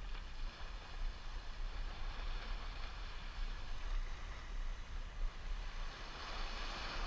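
Small sea waves washing and breaking among shore rocks, swelling a little near the end, with a low rumble of wind on the microphone.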